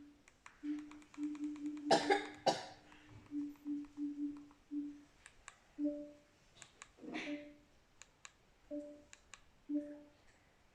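A low buzzing tone from a Sharp smart TV's speakers, cutting in and out in short irregular bursts: the TV's sound fault. A person coughs twice about two seconds in and again near the middle, and there are a few faint clicks.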